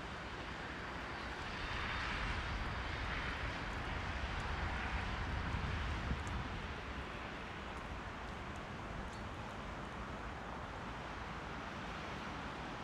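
Rushing whirr of wings from a large flock of bramblings taking to the air, swelling for a few seconds before easing, over a low rumble of wind.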